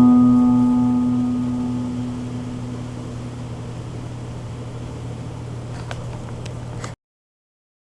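Closing piano chord ringing out and slowly fading, leaving a faint steady hum until the sound cuts off abruptly about seven seconds in.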